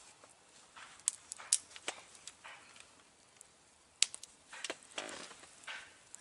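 Knife whittling wood by hand: a few sharp clicks and short scraping strokes, spaced irregularly.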